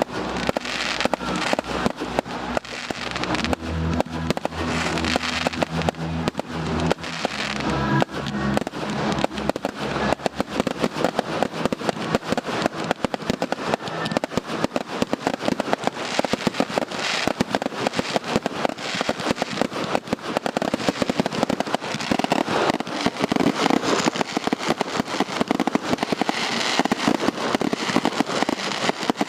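Fireworks display going off in a rapid barrage of bangs and crackles, many per second, growing denser in the last few seconds. Music with held low notes plays under the first several seconds.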